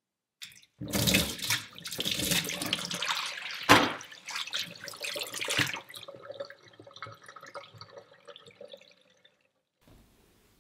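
Water gushing out of a water balloon just pierced with a knife and splashing onto the counter, with a sharp slap a little under four seconds in; the flow then dwindles to trickles and drips as the balloon empties.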